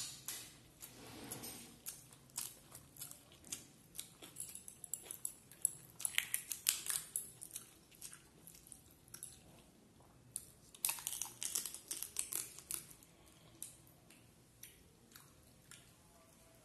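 Close-miked eating by hand: chewing and wet mouth clicks, with crisp crackling as a large curried prawn is pulled apart. The clicks come in dense clusters, then thin out to a few near the end.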